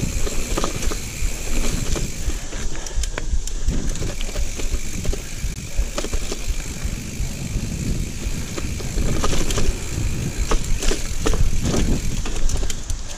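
Giant mountain bike riding over a rooty dirt trail: tyre noise and a low rumble, with the bike rattling and knocking over roots and bumps throughout.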